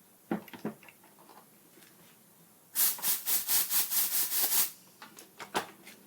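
Compressed air blasted into a Harley-Davidson brake caliper to force a stuck piston out: a loud hiss pulsing about five times a second for roughly two seconds. It is framed by a few short knocks of metal and wood being handled.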